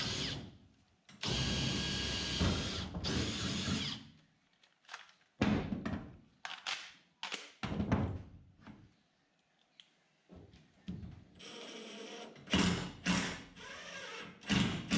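Makita 18 V cordless driver sinking a screw through marine plywood into the boat's floor frame, running steadily for about three seconds. Then come knocks and clicks of tools being handled and set down on the board, and short runs of the driver again near the end.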